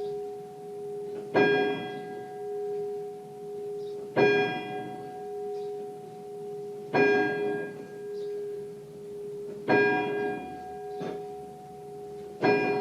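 A single bell tolling, struck five times at an even pace of about one strike every three seconds, each stroke ringing on into the next.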